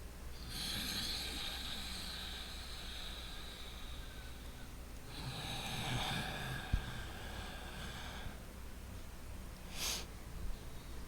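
A man breathing loudly and slowly through his nose as a relaxation exercise: one long breath of about four seconds, a second of about three seconds, then a short sharp sniff near the end. A brief click comes during the second breath.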